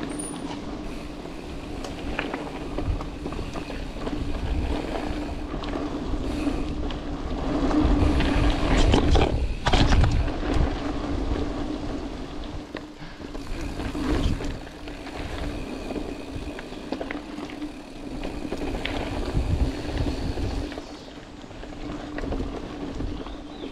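Mountain bike ridden along dirt singletrack: tyres rolling over packed dirt, the bike rattling and knocking over bumps, and wind rumbling on the microphone, with a steady hum throughout. It grows louder for a couple of seconds about a third of the way in.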